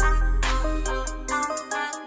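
Background music with a heavy bass line, a melody of short stepped notes and a regular beat; the bass drops out about a second and a half in.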